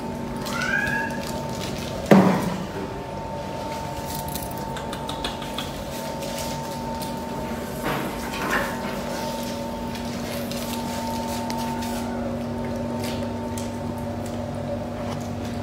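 A steady hum of several fixed tones runs throughout, with one sharp knock about two seconds in and two softer knocks around eight seconds. A short gliding call, like the tail of a cat's meow, comes in the first second.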